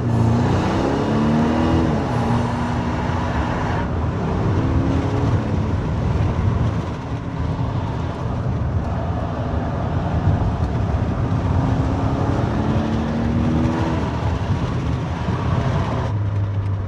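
BMW X3 xDrive30e plug-in hybrid's turbocharged four-cylinder engine and exhaust under hard acceleration in sport mode, revs rising in several pulls. Steady road and wind noise comes through the open windows.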